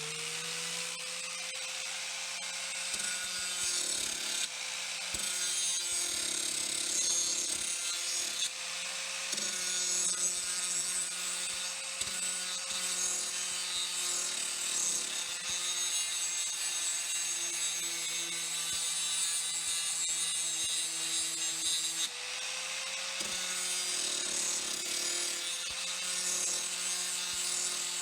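Small electric grinder sharpening the edges of chisels made from rebar: the motor runs at a steady speed under a continuous grinding hiss. The motor slows about 22 seconds in and picks up speed again.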